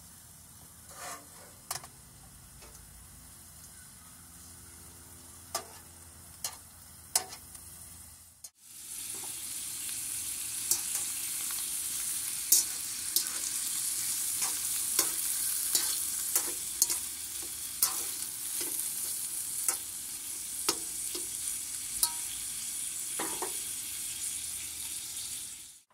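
Cubes of beef fat sizzling as they render in a coated wok, stirred with a flat wire whisk that clicks and scrapes against the pan. For the first eight seconds or so the pan is quieter, with scattered taps of the whisk. Then a loud, steady sizzle sets in, with frequent clicks of the whisk.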